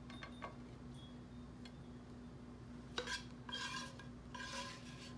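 A cooking utensil clinking and scraping against a pan as fried potatoes are lifted out. There are a few light clicks near the start, a sharp clink about three seconds in and then two short scrapes, over a steady low hum.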